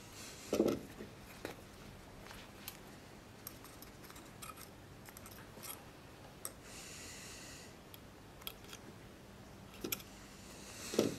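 Hand-stitching leather with thread and needles: scattered faint clicks and rustles, a hiss lasting about a second near the middle as thread is drawn through, and soft knocks of handling near the start and near the end.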